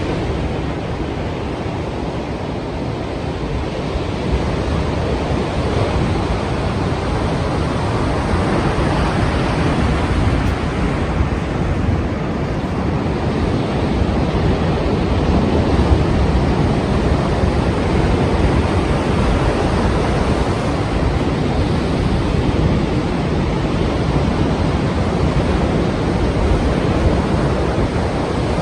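Strong ocean surf: a continuous rush of breaking waves, with wind over the microphone, swelling a little about four seconds in.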